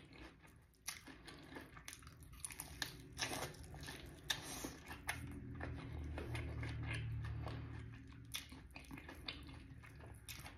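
Close-up chewing and biting of a crispy breaded fried chicken wing: wet mouth clicks and crunches, with fingers pulling the wing apart. A low steady hum rises for a couple of seconds in the middle.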